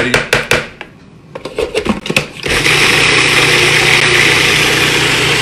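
A spatula scraping and knocking inside a plastic food processor bowl. About two and a half seconds in, the food processor switches on and runs steadily with a motor hum, pureeing thick hummus.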